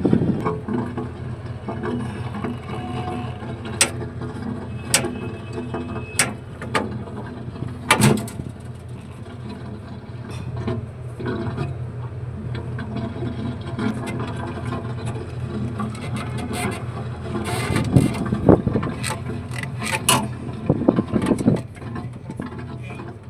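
Metal hand tools clicking and knocking against the air handling unit's pulley and frame while its drive belt is changed, over a steady low machine hum. The knocks come singly every second or two, then bunch together in a busy run of clicks about three-quarters of the way through.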